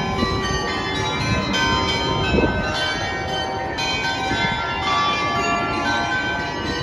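Church bells ringing, new notes struck about once a second and each ringing on, over a steady low rumble.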